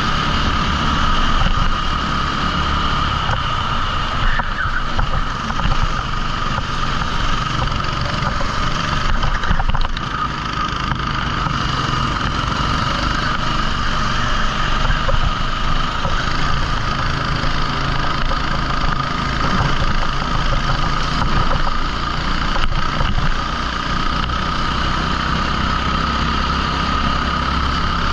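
A 14 HP rental kart engine running at racing speed, a steady engine note whose loudness rises and falls slightly with the throttle.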